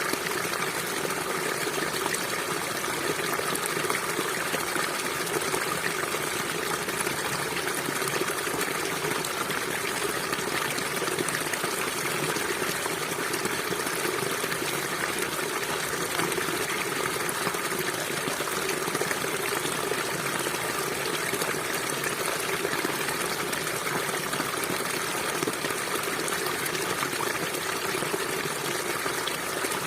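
River water flowing and rushing over stones, a steady even wash.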